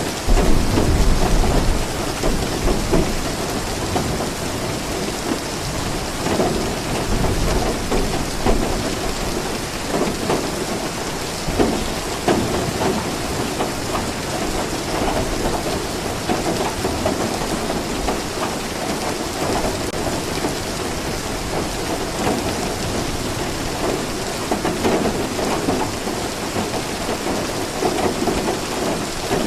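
Steady rainfall, with a loud low rumble of thunder about a second in and softer rumbles later.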